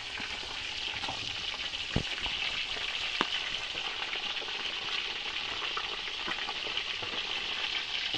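Whole fish frying in hot oil in a pot: a steady sizzle, with two sharp pops about two and three seconds in.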